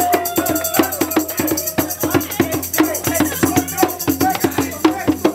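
Hand drums slapped by hand in a quick, steady rhythm of about four to five strokes a second, played as a street drum group.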